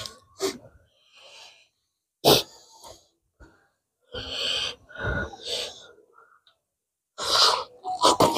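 Close-up eating sounds from people eating 2x spicy noodles and chicken: short noisy slurps and sharp breaths drawn in through the mouth, coming in separate bursts, with a sharp one about two seconds in and the loudest cluster near the end.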